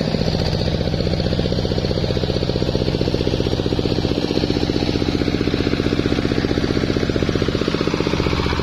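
Single-cylinder diesel engine running steadily, driving a rice threshing machine, with a rapid, even pulse from the engine firing.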